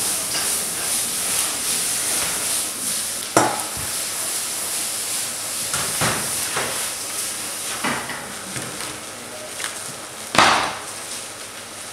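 Vegetables sizzling in a hot frying pan over a gas burner, a steady hiss. Four sharp knocks of pan or utensils come through it, the loudest about ten seconds in.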